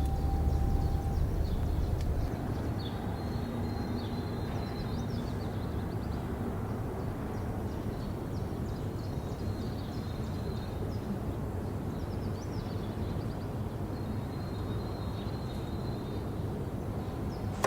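Outdoor background noise with faint, short, high chirps scattered throughout. A low rumble fades out about two seconds in.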